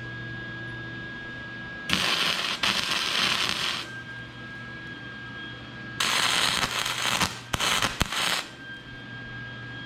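Arc welding, building up a tacked steel stop with weld: a harsh crackling sizzle in a run of about two seconds, then another of just over a second followed by a few short bursts. A steady low hum runs underneath between the runs.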